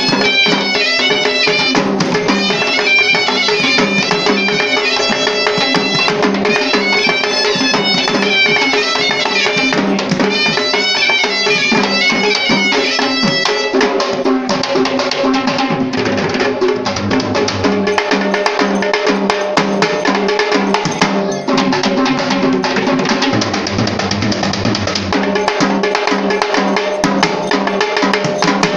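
Sri Lankan traditional drums played in an ensemble, with a shrill reed pipe playing a stepping melody over a steady drone. About halfway through the pipe stops, leaving fast, dense drumming.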